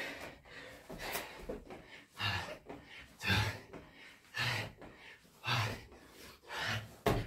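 A man breathing hard from exertion while doing burpees with push-ups: forceful exhales about once a second, six in a row, with a thump near the end.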